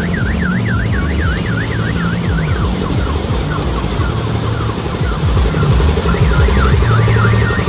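A fast warbling electronic siren, rising and falling about three times a second. It stops about two and a half seconds in and starts again near the end, over a loud low rumble.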